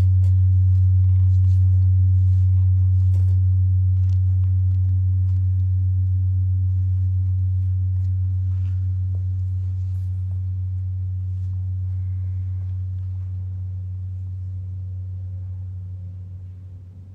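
Large round metal Chladni plate, sand on its surface, vibrating with a low steady hum that slowly fades and dies away near the end.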